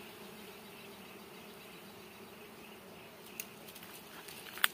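Honeybees buzzing steadily as the bee cluster on their comb is disturbed by hand. A few light clicks near the end.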